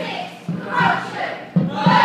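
A group of voices shouting together in short, repeated bursts, like a battle chant, with low drumbeats on a bass drum underneath.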